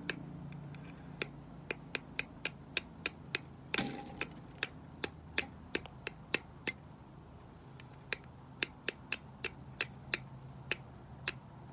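Flint and steel: a small hand-forged steel striker struck against a piece of chert in quick, sharp clicks, about three a second, in two runs with a short pause between, as sparks are thrown at char cloth that has not yet caught. A brief scuffing sound about four seconds in.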